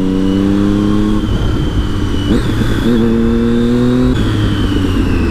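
Triumph Daytona sport bike coasting with the clutch disengaged, under steady road and wind rush. The engine hums at a low, steady pitch, drops out for a moment and comes back, and near the end a high whine falls in pitch as the bike slows.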